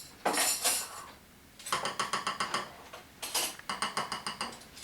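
Cutlery clinking and scraping against plates in three short bursts of quick, sharp ticks.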